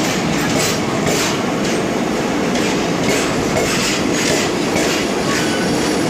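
Train running along the track: a steady rumble with a regular clickety-clack of wheels over rail joints, a couple of clicks a second.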